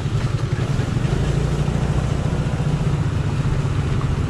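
Honda Activa scooter's single-cylinder engine running steadily under way on a rough dirt track, a low, even rumble with road and tyre noise over it.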